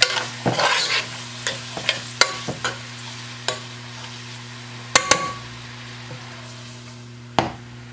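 Chopped white and green onions frying in a metal pot, a soft sizzle under the clicks and scrapes of a metal spoon stirring against the pot. The clicks come thick at first, then two sharper knocks about five seconds in and one more near the end.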